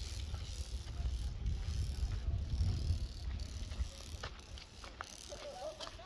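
Wind buffeting the microphone as an uneven low rumble that eases off in the second half, with scattered light clicks and ticks.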